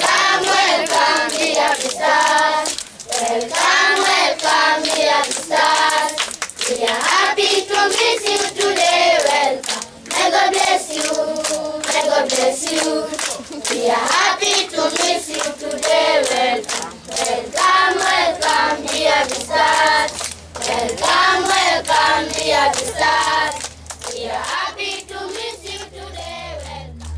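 A group of children singing together with rhythmic hand clapping, a welcome song. Near the end the singing fades out and background music with a low steady drone comes in.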